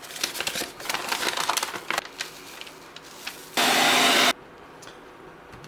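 A sheet of adhesive vinyl being handled and crinkled, with crackling for the first couple of seconds. Then, past the middle, a loud, even rushing noise lasts under a second and cuts off suddenly.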